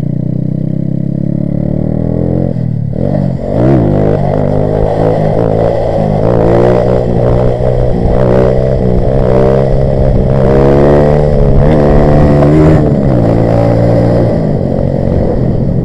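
Grom-clone mini bike's small single-cylinder engine under way. It runs steadily at first, then after about three seconds the revs rise and fall again and again as the throttle is worked through a wheelie, settling toward the end. Wind rushes over the microphone.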